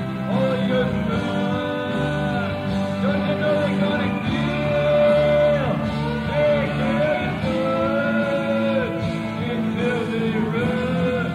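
Rock band playing live in an instrumental stretch: electric guitar, bass and drums under a lead line that slides and bends in pitch. The sound has the muffled, hissy quality of an audience cassette recording.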